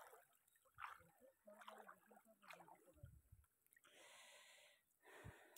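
Near silence, with a few faint breathy puffs and hisses.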